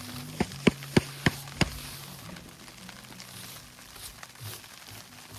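Five sharp knocks in quick succession, about three a second, over a low steady hum.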